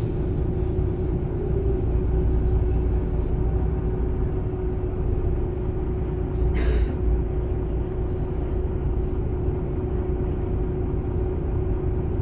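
MAN Lion's City A21 articulated city bus (360 hp, ZF EcoLife six-speed automatic) driving: a steady low rumble of engine and running gear with a steady whine over it. A short sharp rattle comes about halfway through.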